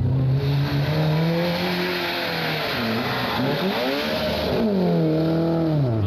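Rally car engine at high revs on a stage. The engine note holds, dips about halfway through, rises and falls again, then drops steeply near the end.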